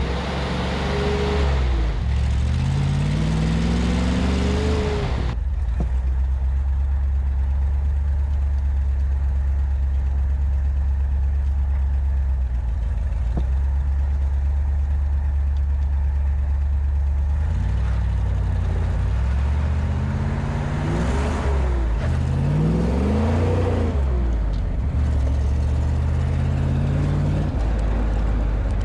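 Willys Jeep engine running while driving. The engine pitch rises and falls as it speeds up and slows down, then holds steady, then rises and falls again in the second half.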